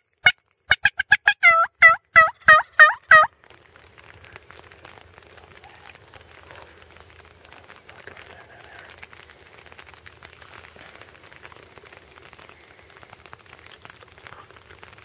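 Turkey call, most likely the hunter's own call close to the microphone: a quick, loud string of about a dozen short yelping notes, each dipping and rising in pitch, ending about three seconds in. Then only faint outdoor background.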